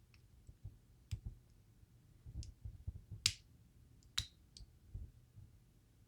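Small metal clicks and ticks, irregular, as the driver pins and springs are worked out of a DOM IX Twinstar lock's housing. Two sharper clicks stand out about three and four seconds in.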